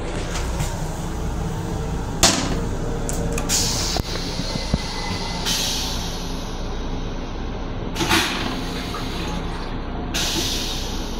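M7 railcar restroom toilet flushing: a sudden whoosh about two seconds in, then hissing sprays in several short bursts. Under it runs the steady low rumble of the railcar.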